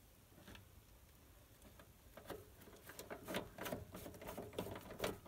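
Hand screwdriver turning screws back into an RV furnace's metal housing: irregular small clicks and scrapes of metal, starting about two seconds in and growing busier toward the end.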